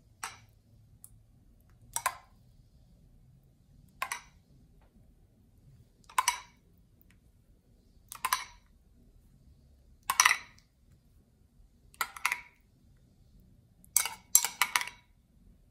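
Metal spoon scraping and clinking against a ceramic bowl as pizza sauce is scooped and dabbed onto dough. Short scrapes come about every two seconds, with a quicker run of three or four near the end.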